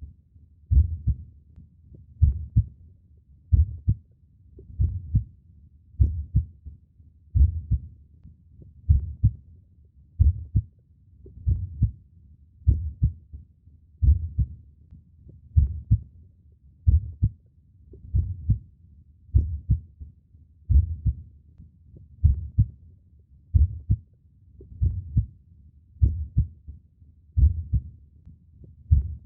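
Human heartbeat, slow and steady: a low lub-dub double thump about every 1.3 seconds, some 44 beats a minute.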